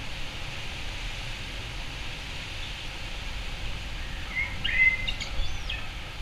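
A bird gives a short phrase of quick chirping notes with glides, about four to six seconds in, over a steady background hiss.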